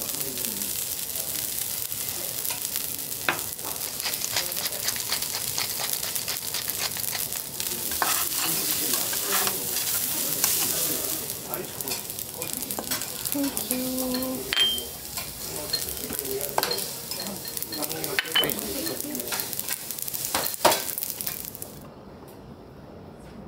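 Fried rice sizzling on a hot steel teppanyaki griddle, with scattered sharp clicks and scrapes of metal spatulas on the steel. The sizzle cuts off near the end.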